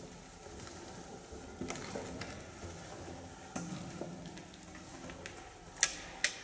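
Footsteps crunching and scraping over loose rubble, with scattered small clicks and two sharp clicks about half a second apart near the end.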